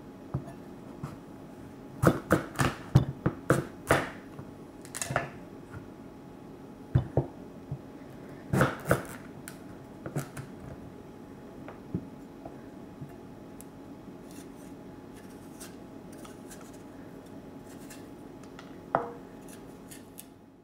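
Kitchen knife cutting the hard skin off a butternut squash on a chopping board: irregular sharp cuts and knocks, with a quick run of them about two seconds in and a pair near the middle, over a faint steady hum.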